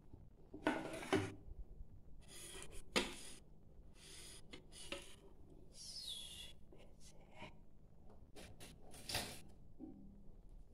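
A metal spoon and glass bowl of noodle soup being handled: a row of short scraping and rubbing noises, with a brief falling squeak about six seconds in.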